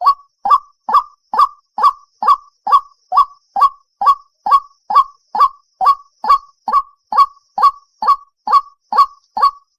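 White-breasted waterhen (dahuk) calling: short, loud notes repeated at a very even pace, a little over two a second, each one alike.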